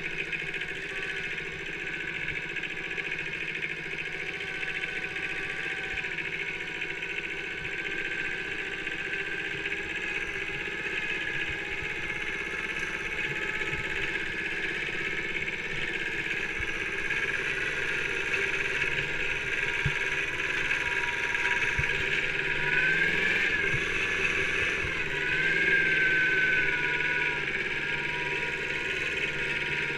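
Kubota B7000 mini tractor's small two-cylinder diesel engine running steadily under way. Its note climbs and gets louder in the last third, then eases back.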